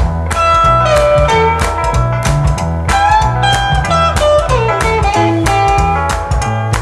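Music: an instrumental break in a 1960s blues-rock recording, a lead guitar solo with bent notes over bass and a steady beat.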